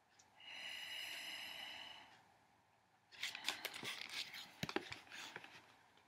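Paper pages of a picture book being handled and turned: a couple of seconds of crinkling and rustling with sharp clicks. Before it comes a high, steady whistling tone lasting about a second and a half.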